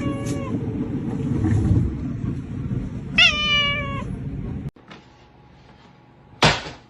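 A cat meowing twice, each meow falling in pitch: one trails off just after the start and a longer one comes about three seconds in, over a low rumble. The rumble cuts off abruptly near five seconds, and a short burst of noise follows near the end.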